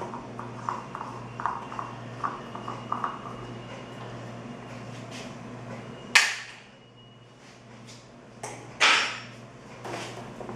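Parts of a Britânia Mega Turbo 40 Six electric fan being handled during disassembly: a run of small clicks and taps, then two loud knocks, each ringing briefly, about six and nine seconds in, over a low steady hum.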